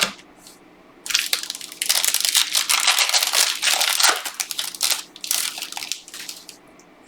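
A trading card pack wrapper being torn open and crinkled in the hands, a dense crackling that starts about a second in and fades out near the end.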